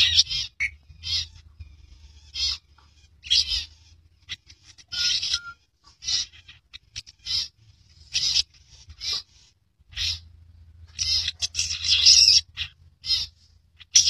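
Long-tailed shrike (cendet) calling in short, scratchy chattering bursts, about one every half second to a second, running into a denser run of song near the end.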